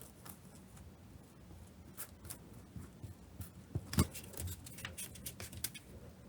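Leatherworking hand tools on leather and a work surface: a run of small sharp clicks and taps, with one heavier knock about four seconds in.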